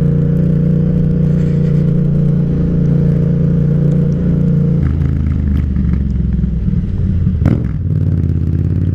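Yamaha MT-07's parallel-twin engine running steadily. About five seconds in its pitch drops lower, then there is a brief quick rise in pitch near the end before it settles back to a steady note.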